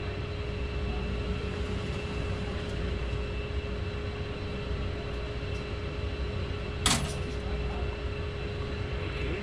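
Electric target carrier motor humming steadily as it brings the paper target back down the lane, over a low steady rumble; the hum stops near the end. One sharp bang about seven seconds in.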